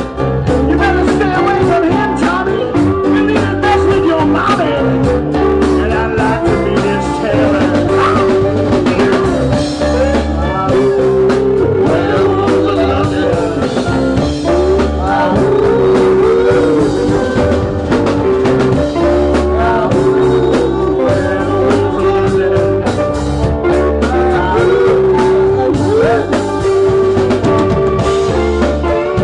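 Live rock band playing electric guitars, keyboard and drum kit over a steady beat, with a melodic line that bends in pitch.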